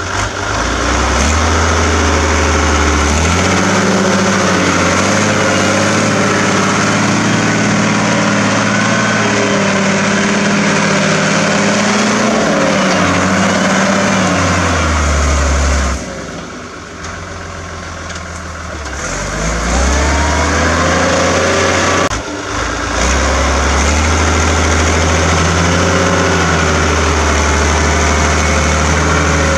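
Agrifull 100DT tractor engine working hard under load, pulling a five-shank subsoiler through the ground, with a loud exhaust note. A little past the middle it drops quieter for a few seconds, then its pitch climbs back up to full power.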